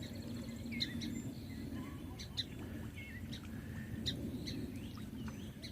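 Birds chirping: many short, high chirps and little pitch glides, irregularly spaced, over a steady low background rumble.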